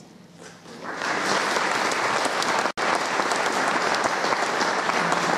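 Congregation applauding: after a quiet first second the clapping starts and carries on steadily, broken by a dropout lasting an instant near the middle.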